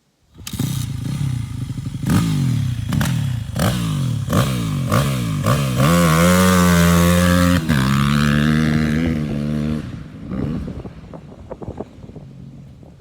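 Dirt bike engine being ridden hard, its pitch climbing and dropping again and again as the throttle is worked, then held at high revs for about two seconds. After that it backs off and fades, with scattered crackles.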